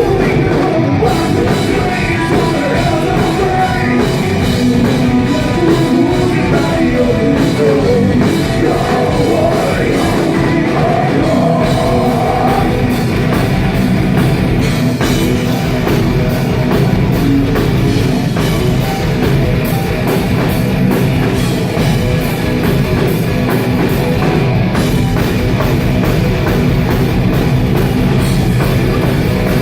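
Live heavy metal band playing loud: distorted guitars, pounding drum kit and singing. It was recorded on a phone that could not handle the volume, so the sound is overloaded and muddy.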